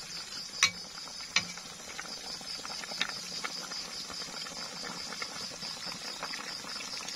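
A pot of pork and cabbage soup simmering, with a few sharp pops from the bubbling broth. Behind it runs a steady, rapidly pulsing high-pitched trill.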